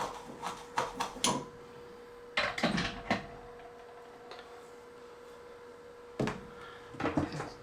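Light knocks and clatters of small tools and parts being handled on a workbench, in several short clusters with a faint steady hum underneath.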